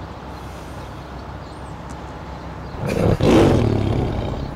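A tiger roaring once, about three seconds in, a loud rough call lasting over a second, over low steady background noise.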